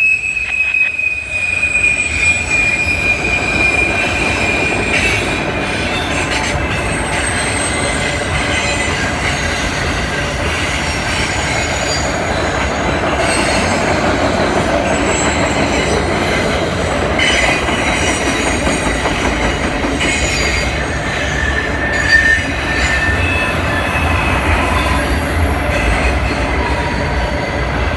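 Empty autorack freight cars rolling past with a steady rumble of wheels on rail. Wheel flanges squeal on and off, with a high steady squeal over the first few seconds.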